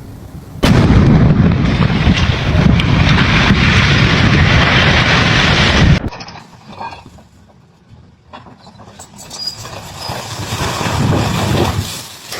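Building demolition: a sudden loud blast about half a second in, running straight into a heavy rumble of collapse that cuts off abruptly about six seconds in. A quieter rumble then builds again near the end.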